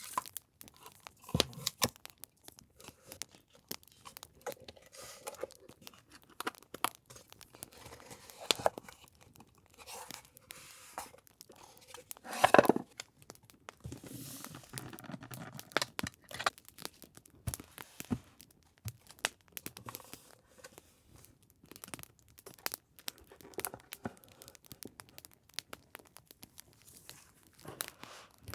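Paper and packaging being handled: crinkling and rustling with tearing and scattered sharp clicks, the loudest rip about twelve and a half seconds in.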